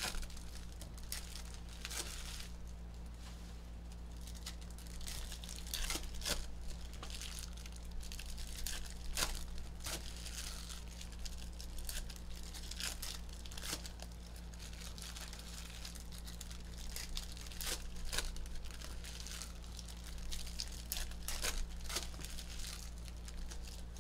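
Foil trading-card pack wrappers being torn open and crinkled by hand: a run of short, sharp crackles and rips.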